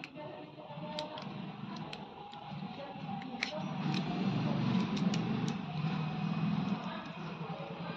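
Scattered sharp clicks and taps of small hard parts being handled, over a low rumble that swells through the middle and fades near the end.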